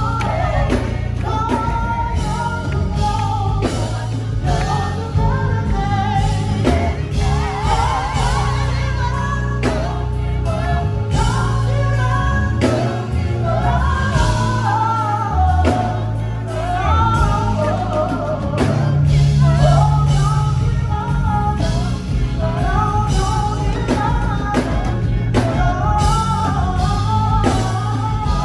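A song with a sung melody over drums and a strong bass line, playing steadily throughout.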